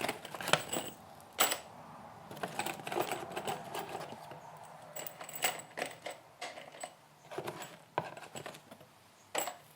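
Loose metal fasteners clattering and clicking as they are handled and dropped into the plastic bins of a tool-organizer case, a string of irregular sharp clicks and short rattles.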